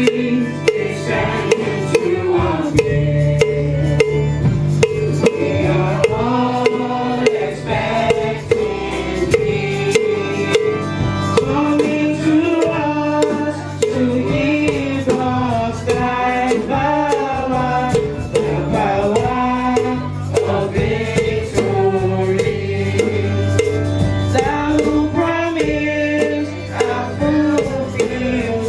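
A choir singing with instruments and a steady drum beat.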